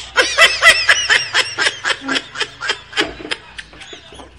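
Laughter: a long run of quick ha-ha bursts, about four to five a second, fading out near the end.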